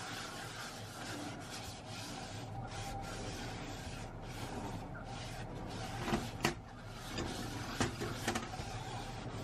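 Paper towel rubbing around the inside of a STAUB enamelled cast-iron pot, wiping off the oil left from seasoning. A few light knocks come in about six to eight seconds in.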